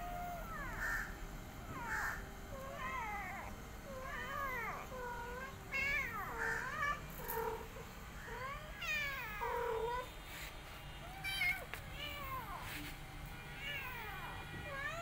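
Cats meowing: a rapid string of short, high-pitched meows that rise and fall, one after another with some overlapping.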